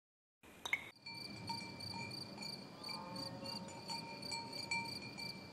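Insects chirping steadily, a high chirp repeating about three times a second over a faint outdoor hiss, starting after a short click about a second in.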